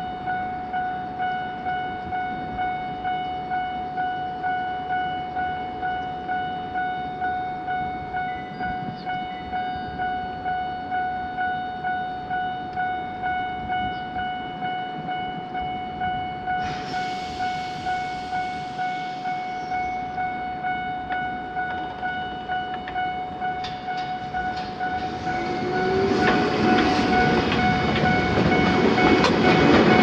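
Japanese level-crossing alarm with an unusual, odd-sounding bell tone, dinging steadily about one and a half times a second. From about 25 s in, an Ichibata Electric Railway train approaches, and its running noise swells until it passes over the crossing at the end.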